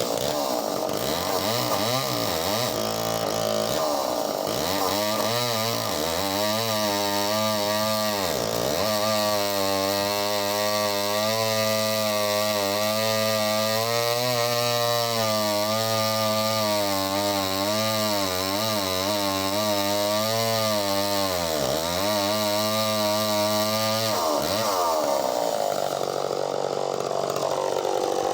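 Two-stroke chainsaw running hard at high revs. Its engine note dips sharply and recovers twice, about eight seconds in and again about twenty-two seconds in, and wavers at the start and near the end.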